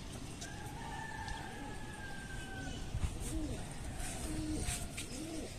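Birds calling: one long held call that lasts about two seconds near the start, then pigeons cooing several times in the second half.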